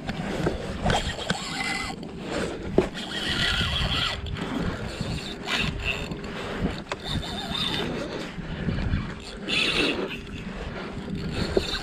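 Spinning reel being cranked to bring in a heavy fish, under uneven wind and water noise against the inflatable boat.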